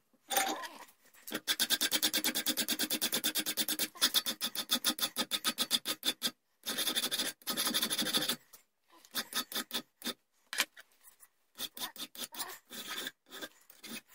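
Hand file rasping back and forth across a small steel rear sight clamped in a bench vise, taking off material to shape it. Several seconds of fast, even strokes with a couple of short breaks, then slower, scattered strokes in the second half.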